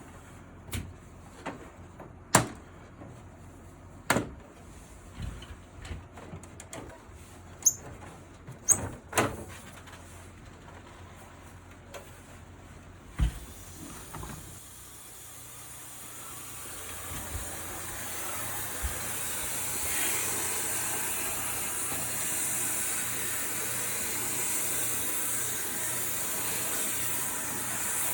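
Scattered sharp clicks and knocks of air-conditioner parts being handled. About halfway through, a steady hissing spray starts, builds up and then holds: a water jet washing the wall-mounted air conditioner's internals.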